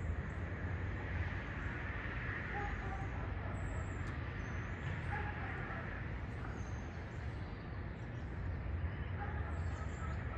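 Steady low outdoor rumble, with a few faint short bird chirps scattered through it.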